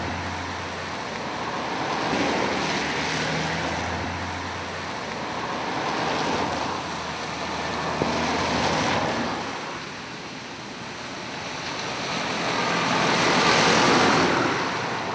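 Traffic on a rain-soaked road: vehicles swish past one after another with tyres hissing through the water. A low engine hum runs under the first few seconds, and the loudest pass comes near the end.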